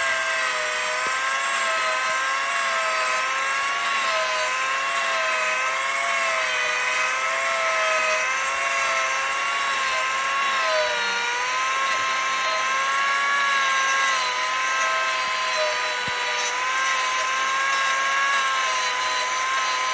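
Angle grinder fitted with a Manpa multi-cutter carving attachment, running steadily and cutting into wood, its whine dipping and recovering slightly as the cutter takes load.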